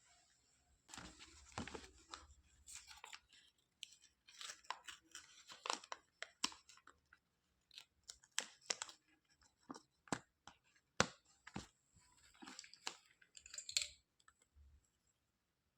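Small plastic toy pieces being handled, with irregular quiet clicks and taps among short bursts of rustling, like packaging being torn open and crinkled.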